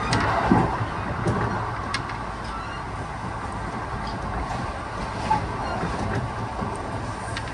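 Running sound inside a Kintetsu 1620 series electric train at speed: a steady rumble of the wheels on the rails, with a few sharp clicks.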